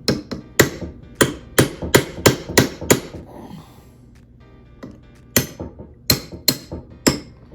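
Hammer striking a pin punch to drive a pin out of a KitchenAid RRK5A stand mixer, sharp metallic taps: about nine in quick succession, a short pause, then about five more.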